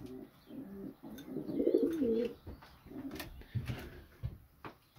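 Homing pigeons cooing: low, wavering coos, loudest about one and a half to two seconds in, with more cooing shortly after.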